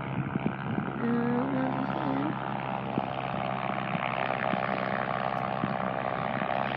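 Distant aircraft engines running: a steady drone with several tones in it that grows louder about a second in.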